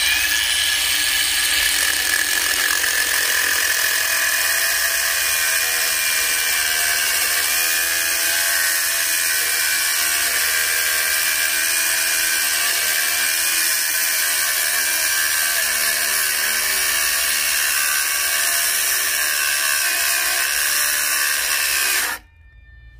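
Makita-branded cordless angle grinder running at full speed with a cutting disc biting into thick steel channel: a steady high whine with grinding hiss, its pitch wavering as the load changes. About 22 seconds in it cuts out abruptly because the 5-cell battery pack can't supply the high discharge current the grinder needs and its protection circuit shuts off.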